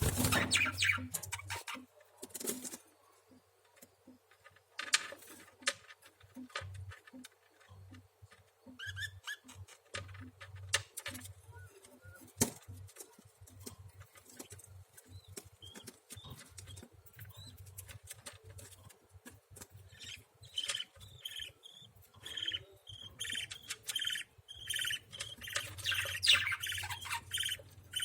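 Baby lovebirds chirping in short, high, repeated calls that come in a quick steady run over the last third, among scattered clicks and scratches.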